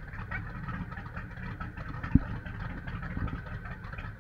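Motorboat engine running while the boat is under way, with wind buffeting the microphone as a steady rough rumble. A single sharp knock about two seconds in.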